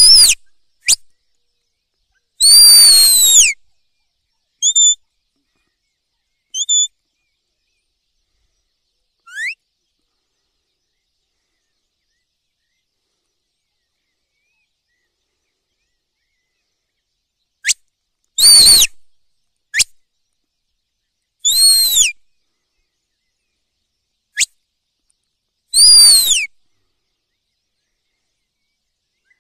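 A series of loud, high-pitched whistled calls, five in all, each about a second long and dropping in pitch at the end. Between them are a few short chirps, one quick upward sweep and some sharp clicks, with silence in the gaps.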